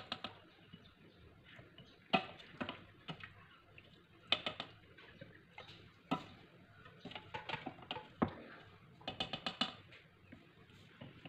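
A ladle clinking and scraping against a stainless steel pot as cooked cucumber relish is spooned into glass jars: scattered light clinks and knocks, with a quick run of taps about nine seconds in.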